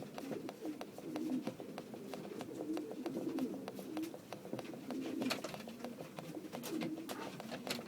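Racing pigeons cooing, a low wavering coo that goes on throughout, in an enclosed space, with many sharp clicks and taps scattered through it.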